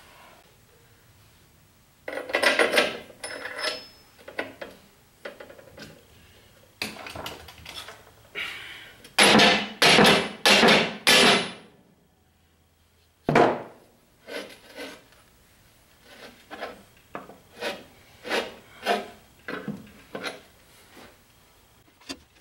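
Steel leaves of a 1962 Dodge D100 front leaf-spring pack being restacked by hand on a wooden bench: a run of scrapes and rubs of metal on metal and wood, loudest in four strokes about ten seconds in. Then a single sharp knock, followed by a string of lighter knocks.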